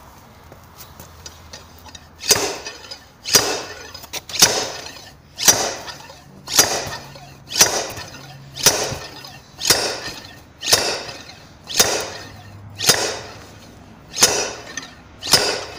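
Slide-hammer diesel injector puller banging repeatedly, its sliding weight slamming against the stop about once a second, roughly thirteen metallic strikes starting about two seconds in. The hammering is an attempt to free a seized injector stuck in the cylinder head.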